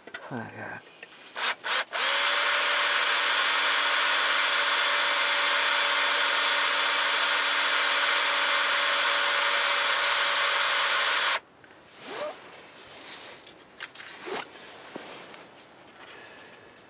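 Cordless drill driving a small left-hand drill bit into a bolt sheared off in an Isuzu C240 diesel's block, to back the broken bolt out. Two short trigger blips, then about nine seconds of steady drilling that stops abruptly, followed by faint handling sounds.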